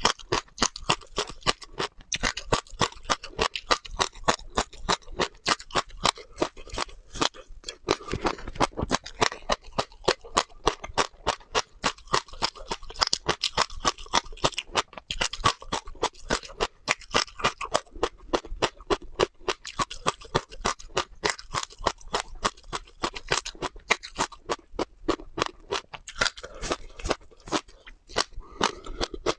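Seeds being bitten and crunched in the mouth, close up: a quick run of sharp, crisp cracks, about three to four a second, going on without a break.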